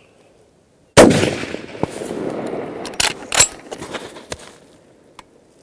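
A single .308 rifle shot about a second in, its report dying away slowly over a couple of seconds, followed by a few sharp metallic clicks.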